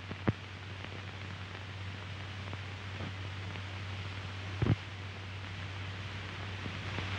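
Steady hiss and a low, constant hum from an old optical film soundtrack. There is a sharp click about a third of a second in and a louder double click a little past halfway.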